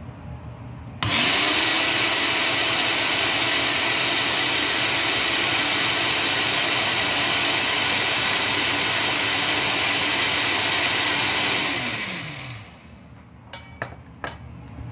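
Countertop blender with a glass jar switched on about a second in, its motor running at a steady whirr while blending powdered milk with sugar syrup, then switched off near the end and winding down in pitch. A few short clicks follow.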